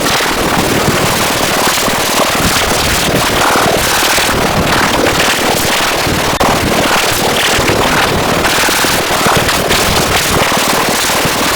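Loud, continuous crackling noise thick with rapid pops, spread evenly from low to high pitch, with a brief break about six seconds in.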